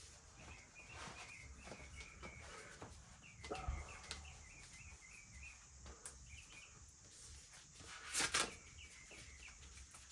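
Small birds chirping in quick repeated notes in the background, with a few sharp knocks around four seconds in and one louder, short noisy clatter about eight seconds in.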